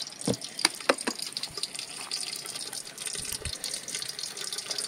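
Wood cooking fire under an aluminium pot, hissing steadily with a few sharp crackles in the first second and a dull knock a little past the middle.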